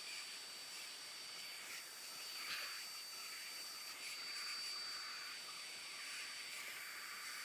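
X-Tronic 7040-PRO-X hot air rework wand blowing, a faint hiss that swells and fades, with a thin steady high whine, as pins are reflowed a second time with solder paste.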